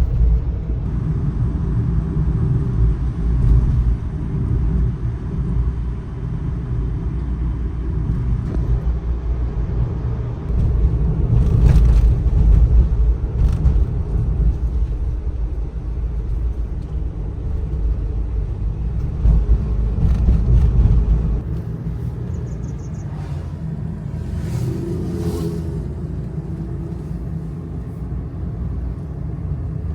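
Kei truck driving, its small engine and road noise making a steady low rumble heard from inside the cab, louder in stretches and easing off about two-thirds of the way through.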